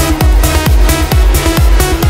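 Electronic dance music with a steady kick-drum beat, about four thumps a second, under sustained synth chords.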